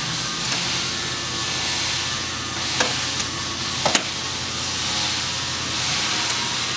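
Steady hiss with a few light knocks and clicks, the loudest a pair about four seconds in, as accountability boards are handled and set onto their mounting tabs.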